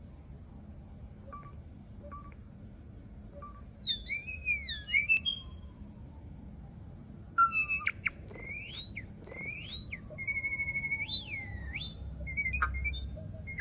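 A songbird singing: clear whistled notes that glide up and down in pitch, a short phrase about four seconds in and a longer, more varied one from about seven seconds, with a few short soft notes before them.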